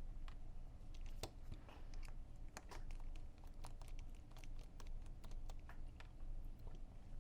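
Irregular small clicks and taps of plastic and metal parts being handled as the barrel and hop-up assembly are worked out of an Action Army AAP-01 airsoft pistol's upper, over a steady low hum.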